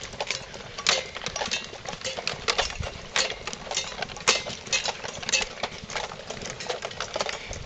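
Footsteps of a crowd walking on a dry dirt path, mixed with the clinking of carried gear: an irregular, continuous clatter of many small clicks and knocks.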